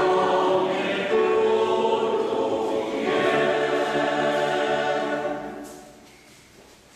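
Mixed choir singing with piano accompaniment, coming to its final chord about five and a half seconds in, which dies away in the church's echo.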